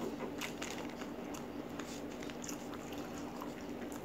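A person chewing food close to the microphone, with scattered wet mouth clicks and small crunches over a steady low hum.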